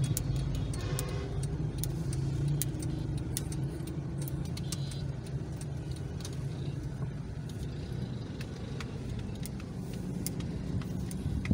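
Road traffic heard from inside a car's cabin: a steady low rumble of engine and road, with light scattered ticks.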